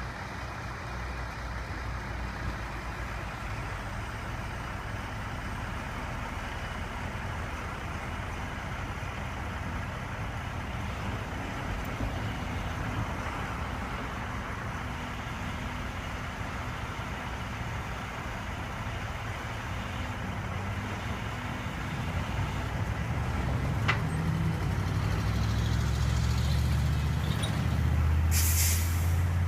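Heavy engine running steadily with a low rumble, growing louder in the last several seconds. There is a single click partway through and a short hiss near the end.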